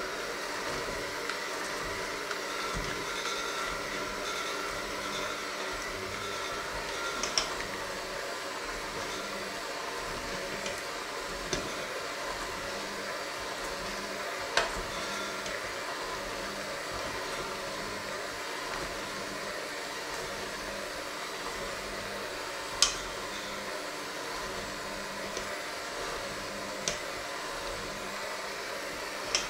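Electric hand mixer running steadily, its beaters working a thick mixture in a stainless steel bowl. A handful of sharp clinks, the beaters striking the steel bowl, stand out above the motor, the loudest about two-thirds of the way through.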